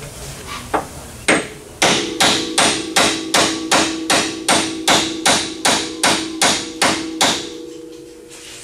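Hammer blows on metal at the strut-top camber plate of a Fox Body Mustang: two single knocks, then a steady run of strikes about three a second for some five seconds, each leaving a metallic ring.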